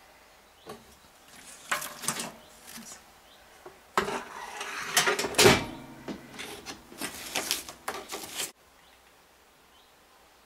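Rattling and knocks from a small built-in oven as it is handled: metal trays and the wire rack clatter and the glass oven door is shut, with the loudest knock about halfway through. The sound then cuts off suddenly.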